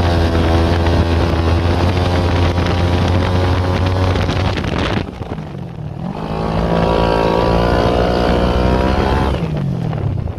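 Homemade go-kart's small petrol engine running at high revs. It drops off briefly about five seconds in, picks back up, then winds down near the end.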